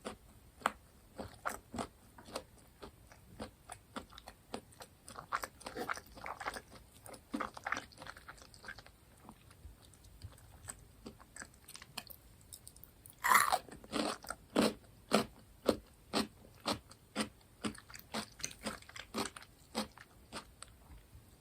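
Close-miked chewing of crunchy fried food: irregular crisp crunches, then one loud crisp bite about thirteen seconds in followed by steady crunching chews, about two a second.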